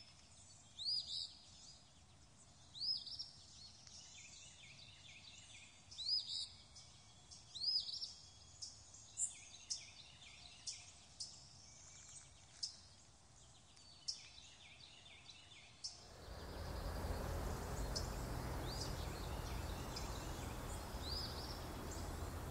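Songbirds chirping and calling, with louder sweeping calls repeated every second or two at first and shorter, sharper chirps after. About sixteen seconds in, a steady hiss of outdoor background noise comes in and covers the rest, with birds still faintly heard through it.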